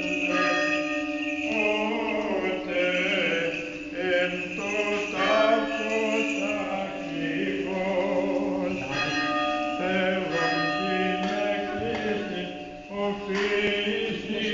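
Greek Orthodox Byzantine chant: a slow sung melody over a steady held drone note.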